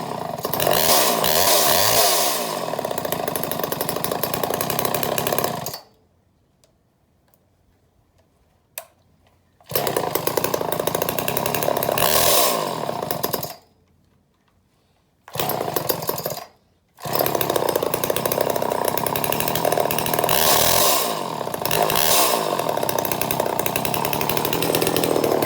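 Homelite Super XL Automatic two-stroke chainsaw engine running and being revved up and down, its pitch rising and falling. The sound cuts out abruptly three times and comes straight back at full level.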